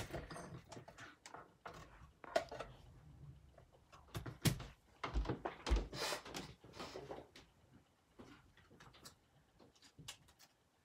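Clear acrylic cutting plates from a hand-cranked die-cutting machine being handled and pulled apart: scattered clicks and taps of plastic, with two low thumps about five and six seconds in.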